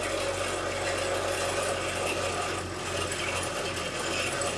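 A small motor running steadily, with a low hum under an even hiss.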